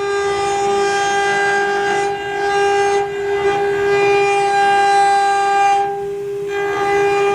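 CNC router's water-cooled spindle milling aluminium: a steady, high-pitched whine with a hiss of cutting noise. The hiss drops away briefly about six seconds in while the whine carries on.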